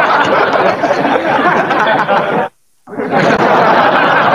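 Many voices chattering and laughing together in a dense, continuous babble, which cuts out abruptly for a split second about two and a half seconds in.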